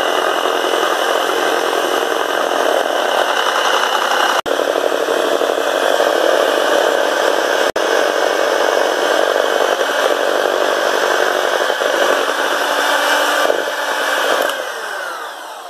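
Electric hand mixer running steadily, its beaters churning in a bowl, with two brief dropouts in the sound and fading out near the end.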